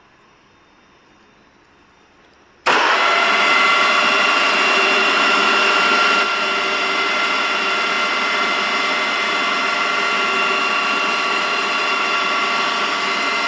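BFW No. 1.5 milling machine switched on about two and a half seconds in, its motor and spindle then running with a steady whine of several tones. It drops a little in level about six seconds in.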